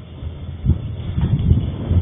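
Wind buffeting the microphone: an uneven low rumble of short gusts.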